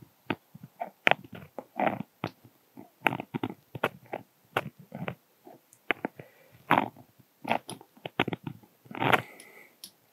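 Irregular soft crackles and ticks, a few a second, from tying thread being wrapped by hand with a bobbin around the head of a bunny-strip streamer fly, the thread rasping over the materials.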